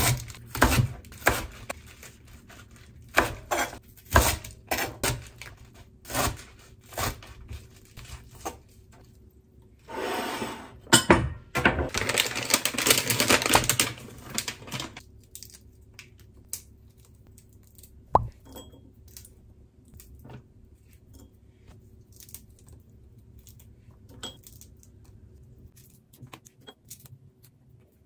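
A kitchen knife chops napa cabbage on a plastic cutting board, striking roughly every half second for the first nine seconds or so. About ten seconds in, a plastic bag of dried anchovies rustles loudly for about five seconds as it is handled over a bowl. After that there are only faint light taps and clicks as the small dried anchovies are picked over and dropped into a ceramic bowl.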